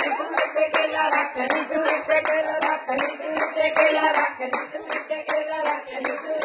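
Rhythmic hand clapping, about three claps a second, keeping time under a woman singing a Punjabi folk song.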